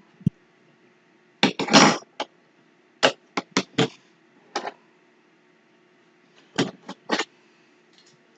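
Parts of a Hachette build-up Spitfire model being handled and set down on a cutting mat: irregular short clicks and knocks, with a longer scraping rustle about a second and a half in.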